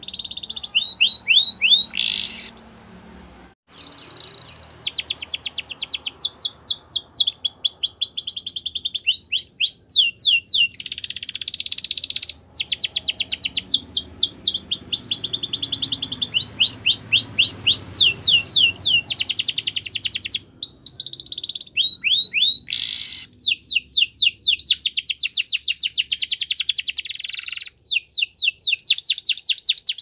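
Domestic canary singing: a long run of fast trills, each a rapid string of high notes sliding downward, switching to a new trill every second or two. The song breaks off briefly about three seconds in, then carries on.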